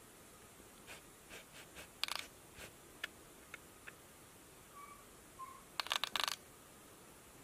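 Cat pawing and clawing at a laptop screen: scattered light taps and clicks, then a quick flurry of scratchy taps about six seconds in, the loudest moment. Two faint short bird chirps come from the bird video on the laptop just before the flurry.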